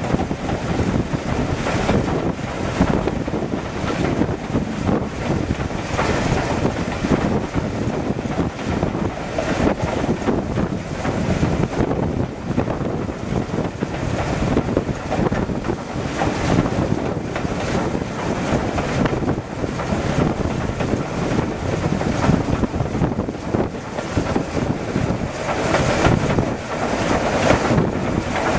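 Heritage train hauled by steam locomotive 53808 running downhill at speed: a steady rumble of wheels on the track with wind buffeting the microphone held out of the carriage window.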